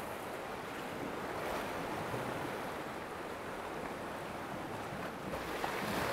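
Sea swell surging and breaking against shoreline rocks: a steady wash of surf that swells louder near the end.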